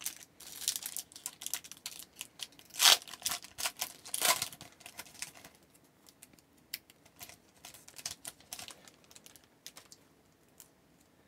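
Hockey trading cards being handled: a pack wrapper crinkling and cards clicking and sliding against each other. The clicks are busiest in the first half, with two louder snaps about three and four seconds in, then thin out to a few faint ticks.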